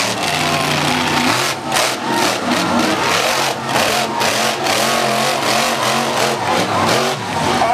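Monster truck engine revving hard, its pitch rising and falling again and again as the truck throttles through a freestyle run and a wheelie.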